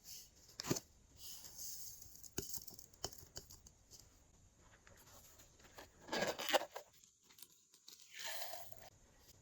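Glossy slime being handled and mixed: scattered sticky clicks and short tearing swishes, loudest about six seconds in.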